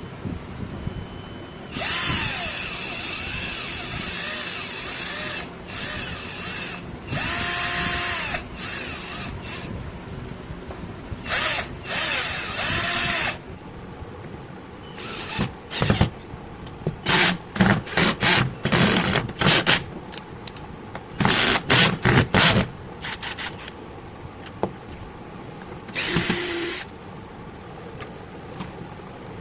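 A 12-volt cordless drill's motor running in short bursts, spinning up and winding down each time. In the second half the trigger is pulsed quickly, many brief whirs in a row.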